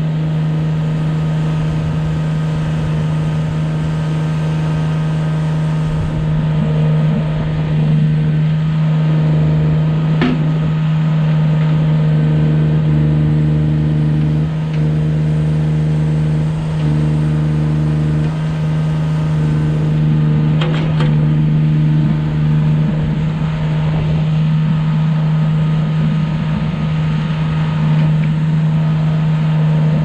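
Engine of a 2014 Terramite T9 backhoe loader running steadily while the backhoe boom and bucket are worked. Its note shifts in stretches of a few seconds as the hydraulics take load, with a couple of brief knocks along the way.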